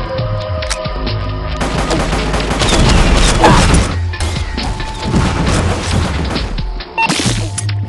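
Fireworks going off in a rapid barrage of bangs and crackles, with music playing underneath. The barrage starts about a second and a half in.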